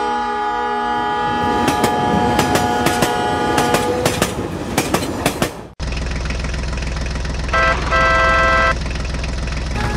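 Toy train's horn sounding one long, slowly fading note over the clicking of its wheels on the plastic track. The sound then cuts abruptly to a steady low engine hum with two short horn toots, one brief and one longer, from the toy tractor.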